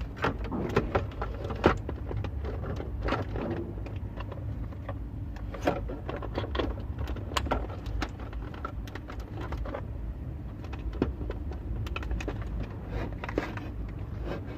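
Irregular plastic clicks, taps and rattles of a car's console switch panel and its wiring connectors being handled and plugged in, over a steady low hum.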